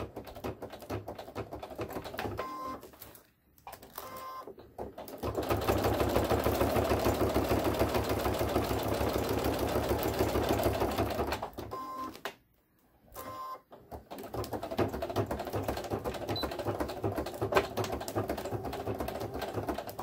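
Computerized sewing machine stitching Velcro tape onto fabric with a rapid, even needle rhythm. It runs in several goes: it stops briefly about three seconds in, runs fastest and loudest through the middle, stops for about two seconds a little past halfway as the work is turned at a corner, then stitches on more slowly.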